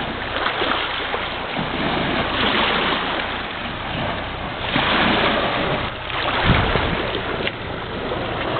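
Small waves lapping on a pebbly lakeshore, with wind buffeting the microphone in surges; a stronger gust rumbles a little past halfway.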